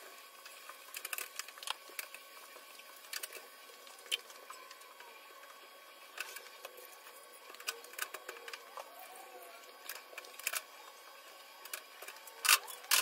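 Stove being cleaned by hand: scattered light clicks and knocks as parts of the stovetop are handled and wiped, with a couple of sharper knocks near the end.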